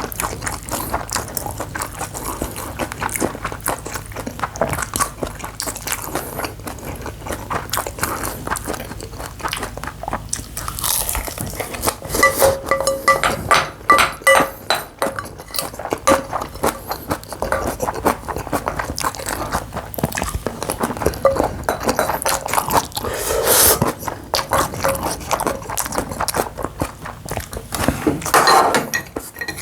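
Close-up eating sounds of bibimbap: chewing mixed with a spoon clinking and scraping against a bowl, with a few ringing clinks near the middle.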